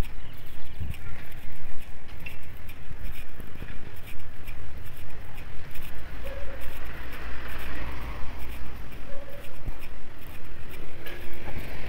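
Wind buffeting a handheld phone's microphone while walking along a street, with a low rumble of road traffic and scattered clicks of footsteps and handling.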